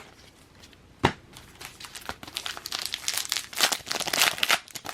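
A sharp tap about a second in, then a trading card pack's wrapper being crinkled and torn open.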